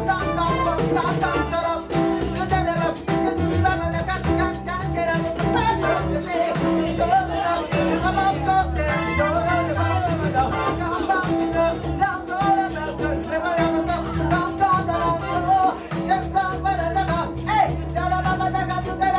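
Live band playing an upbeat Latin-flavoured tune with singing over a steady rhythm.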